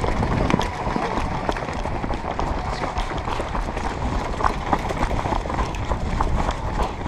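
Running footsteps crunching on gravel and dirt, a quick irregular patter of steps, with low rumble from movement and wind on the helmet camera's microphone.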